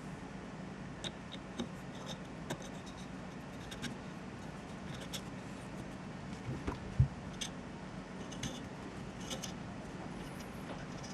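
Small metallic clicks and scrapes as a screw and washer are fitted into the top of a Browning Buck Mark pistol and turned in with an Allen wrench, with one louder low knock about seven seconds in, over a steady low hum.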